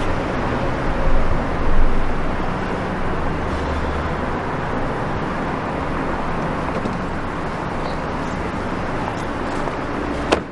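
Steady motor-vehicle rumble with a low hum, swelling slightly in the first couple of seconds. A single sharp click comes just before the end.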